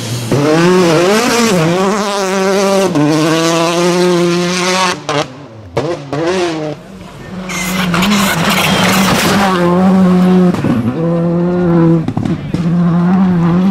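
Rally cars at full throttle on a gravel stage, one after another: engine notes climb and drop sharply with each gear change. About five seconds in the sound briefly falls away, then a rush of noise and another car's engine comes through.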